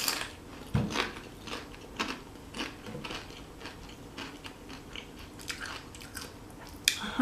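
Close-up mouth sounds of biting into and chewing crunchy tortilla chips: a sharp crunch at the start, another about a second in, then steady crackly chewing, and a further loud crunch near the end.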